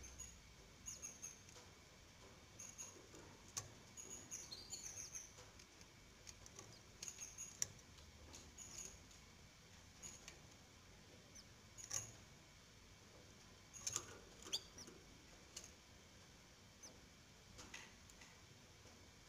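Faint, thin, high-pitched peeping of three-day-old canary nestlings: short squeaks in irregular clusters, some gliding down in pitch, with a few sharp clicks among them.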